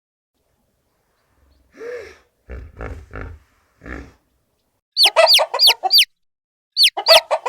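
Animal calls: a few short calls, then a quick run of sharp calls, each dropping in pitch, about four a second, starting about five seconds in.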